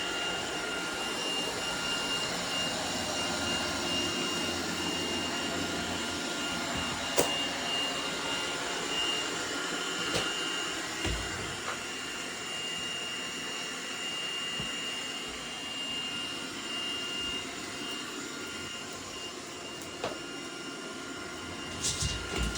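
Gutrend Vision 730 robot vacuum cleaner running: a steady suction hum with a high-pitched motor whine, broken by a few sharp clicks, the loudest about seven seconds in.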